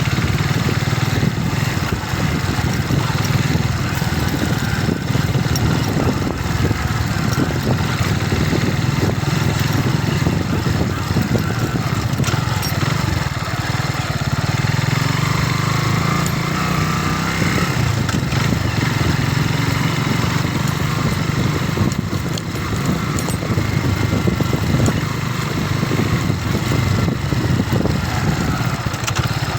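Kawasaki trail motorcycle engine running steadily while riding a rough semi off-road track, its pitch rising and dipping a little as the throttle changes.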